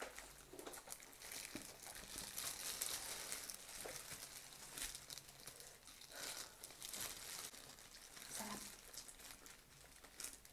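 Faint crinkling of disposable plastic food gloves as gloved hands pull apart roast chicken, with scattered small crackles and clicks of eating.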